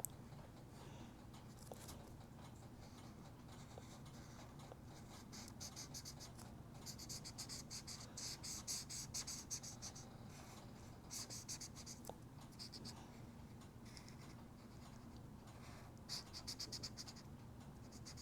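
A coloring tool scratching on paper as an area is filled in with fast back-and-forth strokes. It comes in spells of a few seconds with short pauses between them, faint, over a low steady hum.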